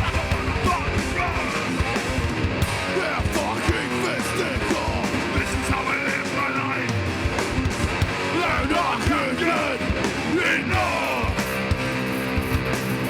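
Hardcore band playing live: distorted electric guitars, bass and pounding drums with yelled vocals. From about eleven seconds in, the guitars hold ringing sustained chords.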